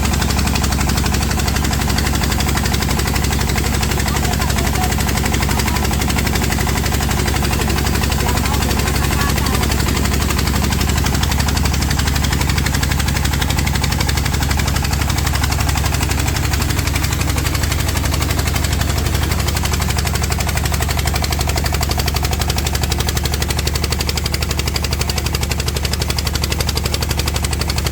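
Diesel engine driving an axial-flow flood pump, running steadily under load with a fast, even knocking beat.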